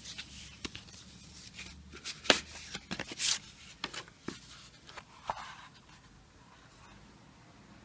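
Hands handling coins and their packaging: a run of clicks, taps and short rustles as cardboard holders, a sleeve and a wooden presentation box are moved, the sharpest click a little over two seconds in. It dies down to quiet room sound from about six seconds.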